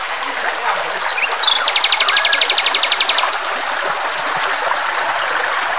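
A forest stream running. Near the middle, a couple of short high chirps are followed by a high-pitched, rapid, even trill of about ten notes a second that lasts about a second and a half.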